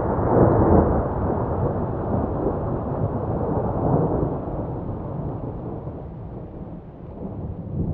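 A deep, rolling rumble with no clear pitch, like distant thunder. It is loudest about half a second in, swells again around four seconds, dies down, then rises once more near the end.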